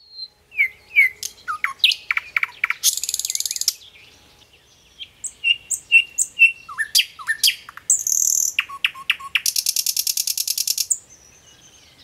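Common nightingale singing: a varied run of whistled notes, clicks and long rapid trills, with a short pause about four seconds in and a phrase of four repeated whistles as the song resumes.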